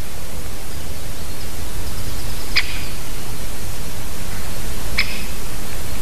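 Steady hiss from the outdoor microphone, with an animal's short, sharp call twice, about two and a half seconds apart, the first a little before halfway and the second near the end.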